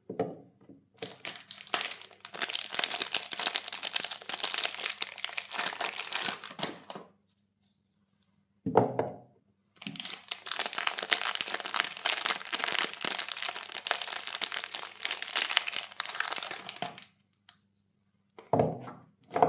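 Soap wrapping being crinkled and torn open by hand: two long stretches of dense crackling rustle, several seconds each, with a short dull knock between them and another near the end.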